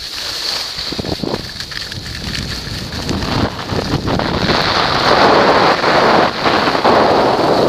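Wind buffeting the microphone of a ski-goggle camera during a downhill run, mixed with the hiss and scrape of skis sliding over groomed snow; it grows louder about halfway through.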